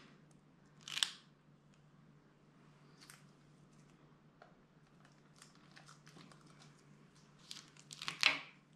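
Faint plastic crinkling and rustling as gloved hands handle a plastic sandwich bag and cups, with a brief rustle about a second in and a louder cluster of crinkles near the end.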